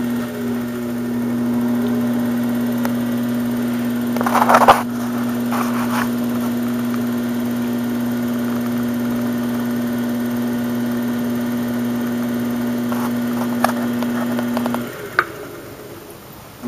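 Electric pottery wheel motor humming steadily as it spins. A brief louder burst of noise comes about four seconds in. Near the end the hum cuts out, leaving a lower background with a sharp click.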